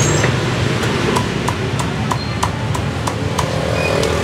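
A cleaver chopping roast pork on a thick wooden chopping block: a quick, even run of knocks, about three or four a second, starting about a second in, over steady background noise.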